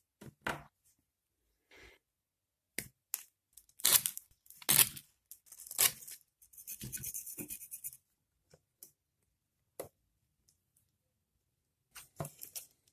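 Hands moving loudspeaker crossover parts (inductor coils, capacitors, resistors) about on a sheet of paper on a bench: scattered clicks and knocks with paper rustling. About six and a half seconds in comes a second or so of quick scratching.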